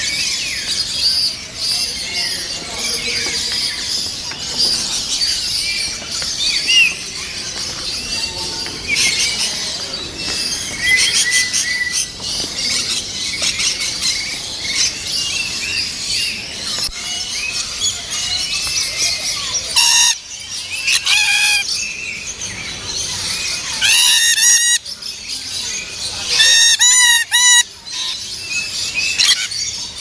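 A flock of free-flying lories and lorikeets calling, with a steady din of shrill chirps and several louder bursts of screeching in the second half.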